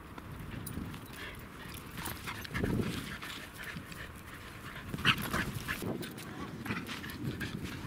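A Pembroke Welsh corgi panting in short, uneven breaths as it runs and trots on dry grass.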